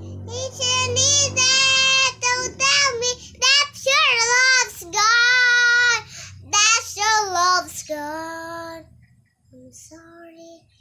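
A young girl singing a slow English pop song alone, with long held notes that waver in pitch; she stops about nine seconds in.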